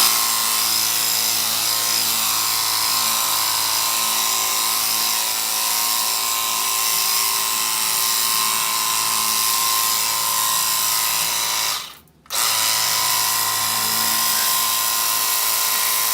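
Cordless pressure washer's battery-powered pump motor running steadily with a hiss. It cuts out abruptly about twelve seconds in and starts again at once.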